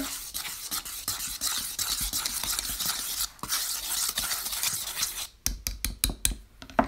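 Wire whisk stirring dry flour and spices in a mixing bowl, a fast, continuous scratchy swishing. About five seconds in it gives way to a quick run of sharp taps of the whisk against the bowl.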